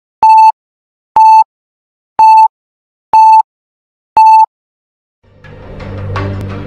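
Five short electronic countdown beeps, one for each number, evenly about a second apart. About five seconds in, music with drums fades in.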